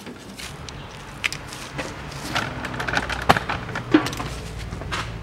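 Hand tools clicking and knocking against bolts and a plastic underbody shield as it is unbolted, with irregular taps and scrapes and two sharper knocks a little after three and four seconds in.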